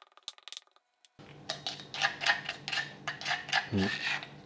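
Granite mortar and pestle: a few quick pestle strikes pounding garlic, then after a short break a spoon scraping and clicking against the stone bowl as the crushed garlic is scooped out.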